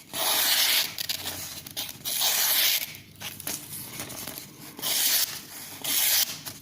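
Knife blade drawn through the V-set white fine ceramic discs of a Victorinox Dual-Knife Sharpener, four short hissing scraping strokes. This is the deburring stage, which the owner takes to be the discs' purpose: cutting off the burr raised by the ceramic rod.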